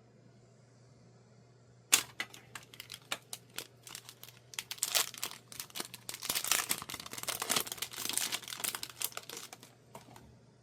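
Plastic packaging crinkling and rustling as it is handled and opened by hand, with scattered clicks. A sharp click comes about two seconds in, the crinkling is busiest in the middle, and it stops near the end.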